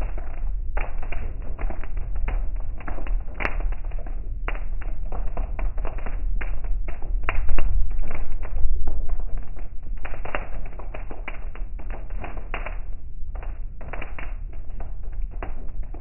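Heavy rain hitting a car's roof and windshield, heard from inside the cabin: a dense, irregular patter of drop impacts over the steady low rumble of the moving car, growing louder for a few seconds in the middle.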